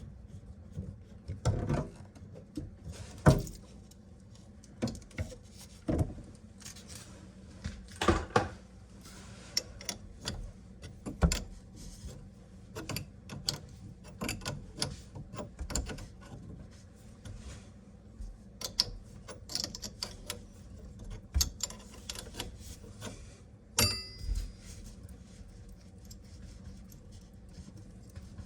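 Faucet parts and hardware being handled: irregular clicks, knocks and rattles of small metal and plastic pieces, with one ringing metallic clink near the end.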